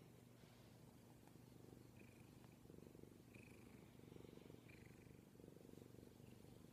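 Bengal cat purring softly and steadily while being stroked on the head. The purr swells and eases with its breaths.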